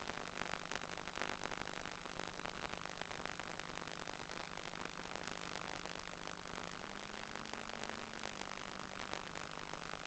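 Steady crackling hiss like radio static, with a faint low hum underneath that rises slightly around seven seconds in and settles again.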